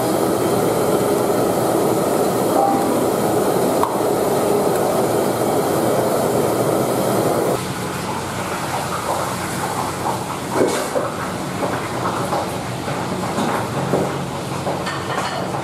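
Steady loud rushing of a gas burner under a steel wok of curry, with kitchen noise. About halfway through it cuts to a quieter background with a low hum and a few light clinks and knocks.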